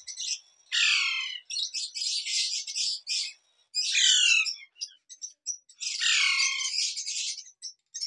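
Parakeet chicks squawking: harsh, rasping calls that slide downward in pitch, coming in about four bursts with short gaps between them.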